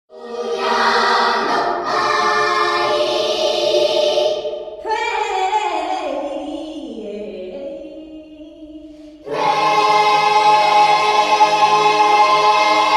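Choir singing sustained chords, starting suddenly out of silence. It thins to a few voices gliding downward in the middle, then comes back in full about nine seconds in.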